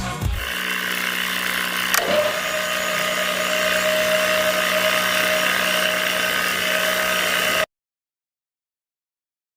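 Small electric motor of a homemade mini drilling rig running steadily with a hum and a whine that settles at one pitch about two seconds in. It cuts off abruptly near the end.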